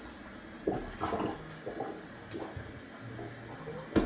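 Rubber plunger worked up and down in a clogged toilet bowl, water sloshing and gurgling with each uneven stroke, ending in a sharp knock.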